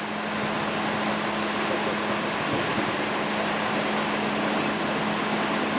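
Concrete mixer truck running steadily while it discharges concrete down its chute: a constant engine hum under an even rushing noise.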